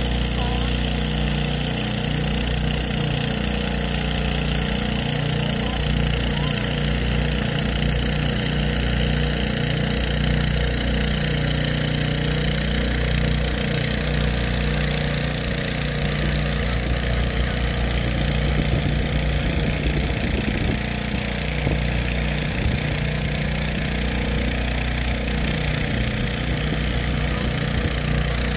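Multirotor crop-spraying drone's propellers humming steadily as it flies low and sprays, a continuous drone with several steady low tones.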